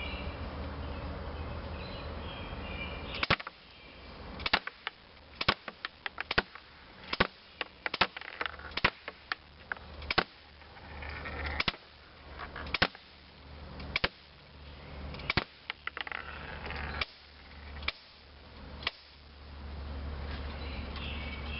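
Crosman Airmag C11 CO2 airsoft pistol fired semi-automatically. A string of more than a dozen sharp cracks starts about three seconds in, spaced irregularly about half a second to a second and a half apart, over a steady low background hum.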